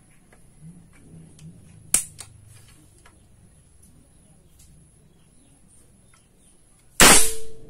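PCP air rifle, a Marauder-style FX Crown copy, handled and cocked with a sharp click about two seconds in, then fired near the end: one loud, short blast of released air with a brief ringing tone after it.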